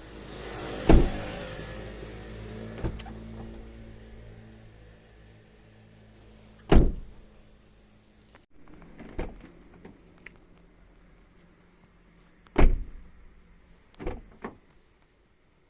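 Mazda Atenza (Mazda6) GJ wagon door being shut three times, about six seconds apart, each a sharp thud, with lighter knocks between. The owner reports an abnormal twanging 'bain' noise from the door as it closes.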